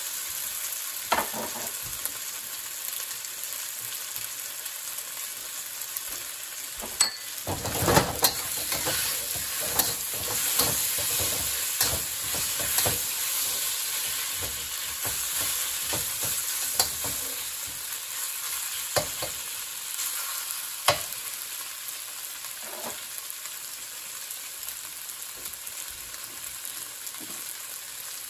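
Diced chicken thigh sizzling in oil in a hot steel wok, with a metal wok spatula scraping and knocking against the pan as the meat is stirred, busiest about a quarter to a half of the way in. The spatula strokes stop after about three quarters of the way, while the sizzling goes on, slowly getting quieter.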